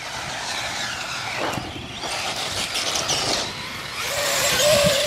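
Radio-controlled monster trucks driving over dirt, their motors whining and changing speed with a rough, hissy scrabble, and a brief steady whine near the end.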